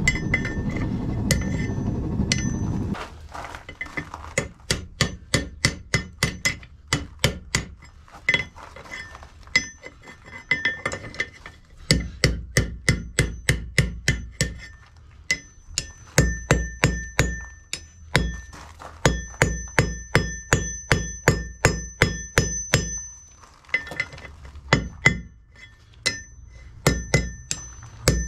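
A hammer striking the new cast Alec Steele anvil over and over, about two to three blows a second in runs with short pauses, each blow leaving a high ring hanging between strikes. A loud low steady noise runs under the first few seconds and then stops.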